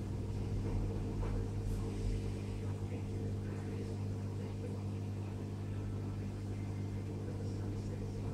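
Saltwater aquarium pump humming steadily, a low electrical hum with a few fainter higher tones above it.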